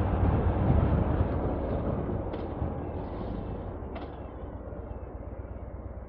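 Harley-Davidson touring motorcycle's V-twin engine running under way, with wind noise; the engine grows quieter as the bike slows. Two short clicks sound about two and four seconds in.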